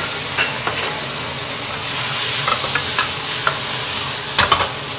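Shrimp and vegetables sizzling in a hot wok with a steady hiss while a spatula stirs them. Scattered scrapes and clicks of the spatula against the wok come through, with a louder clatter near the end.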